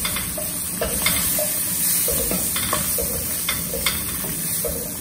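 Potato chunks frying in hot oil and spices in a wok, sizzling steadily, while a spatula stirs them, knocking and scraping against the pan every second or so.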